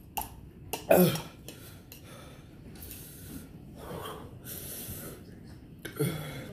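A man eating very spicy fire noodles, breathing hard and sniffing, with a short cough about a second in and another near the end.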